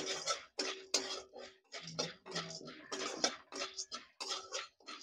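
Metal spatula stirring and scraping corn kernels around a steel kadhai, a rasping scrape with each stroke, about two strokes a second. The kernels are heating in oil and have not yet started to pop.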